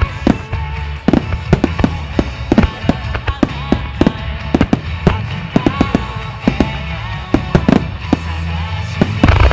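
Aerial fireworks bursting in quick succession, several bangs a second, with the heaviest cluster near the end. Music plays underneath.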